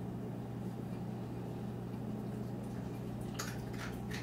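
Dry-erase marker writing on a whiteboard: three short scratchy strokes late on, over a steady low hum.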